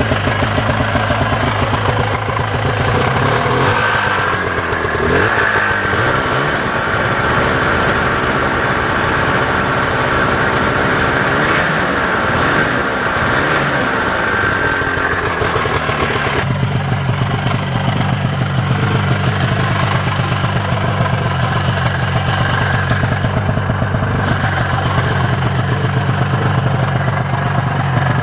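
1987 Ski-Doo Safari 377's two-stroke engine idling, then revved up and down from about four to sixteen seconds in to spin the track and clear ice from it, then settling back to a steady idle.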